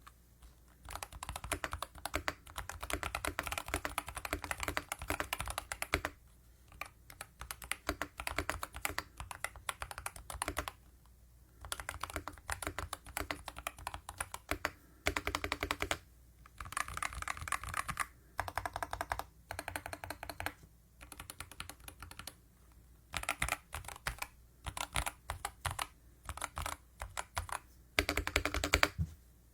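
Typing on a Keychron K2 HE keyboard with Nebula linear magnetic (Hall-effect) switches and PBT keycaps: runs of rapid keystrokes a few seconds long, broken by short pauses. The sound is super creamy.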